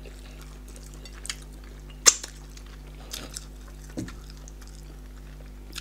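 Sparse eating sounds from people eating fufu and pepper soup by hand: wet mouth smacks and chewing, and fingers working food in ceramic plates, with a sharp click about two seconds in and a soft thump about four seconds in. A faint steady hum runs underneath.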